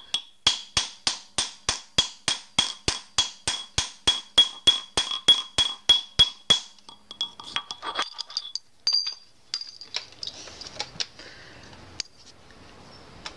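Steel hammer striking a steel bar with a metal ring on its end, held against a steel anvil block. About three blows a second with a high metallic ring, around twenty in all, then lighter, slower taps and a few clinks as a ring is set down on the anvil.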